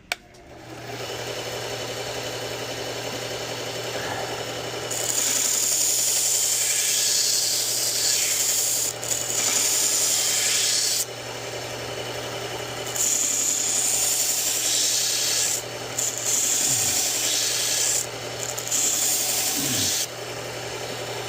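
Belt sharpener running with a steady motor hum while a pocket knife's blade is drawn across the abrasive belt in several grinding passes, the first and longest about six seconds; the passes reprofile and sharpen the edge.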